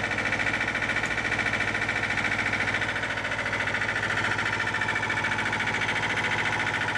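A sailboat's engine running steadily under way, with a fast, even throb, heard from inside the cabin.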